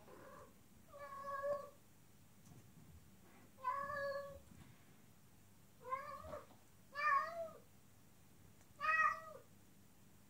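Female cat in heat mate-calling: a series of about six drawn-out meows, each about half a second long and a second or two apart, some rising and then falling in pitch.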